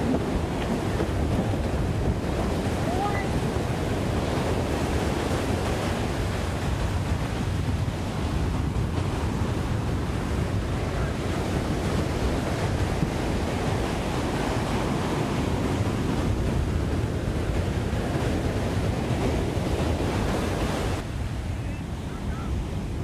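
Surf breaking and washing around the boat in the shallows, with wind buffeting the microphone.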